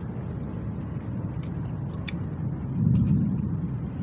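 A steady low rumble of outdoor background noise that swells briefly about three seconds in, with a few faint short clicks above it.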